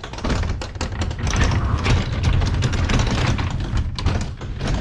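LiftMaster Professional 1/3 HP garage door opener running, its motor droning while the garage door rattles as it moves down.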